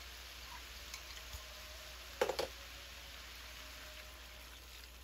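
Stir-fried vegetables and chicken sizzling gently in a wok: a soft, steady hiss with faint crackles. A short clatter a little over two seconds in.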